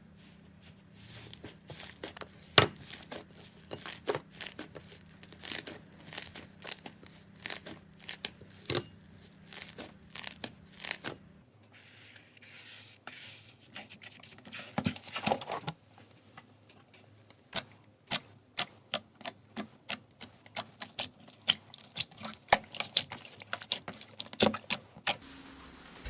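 Slime being squeezed and stretched by hand, giving a run of sharp clicking pops, several a second, with softer squelching between.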